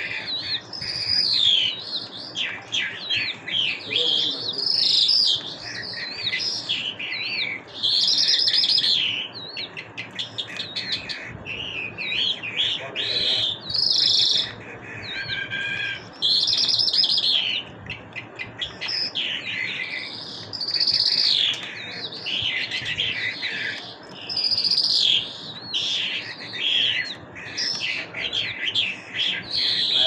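Caged lark singing a long, varied song of high, rapid chirps, trills and whistled glides, delivered in loud phrases of a second or two with short gaps between them.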